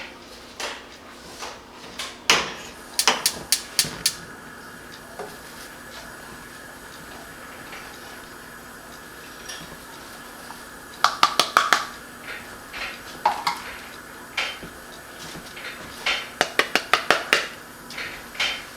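A metal utensil clinking and tapping against a pan as fresh violet flowers are added to honey, in three runs of quick sharp taps with a short ring: near the start, around the middle, and near the end. A faint steady hum runs underneath.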